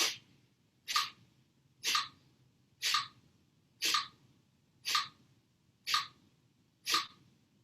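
Kapalabhati breathing: short, forceful exhalations through the nose, one about every second, eight sharp puffs in a row.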